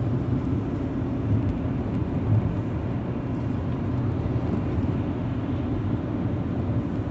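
Car cabin noise while driving: a steady low rumble of road and engine noise.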